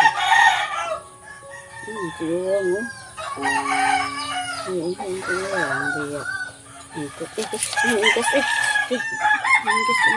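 Farmyard chickens calling: roosters crowing and hens clucking, several calls overlapping.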